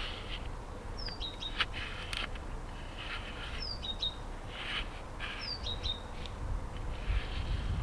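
A bird calling repeatedly: a short chirp that slides down and ends on a brief held note, about four times, with a few light clicks between.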